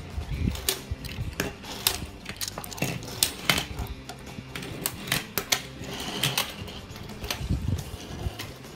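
Small plastic transforming toy cars being handled and pushed on a tabletop: irregular clicks and clacks of plastic parts, with a few low knocks.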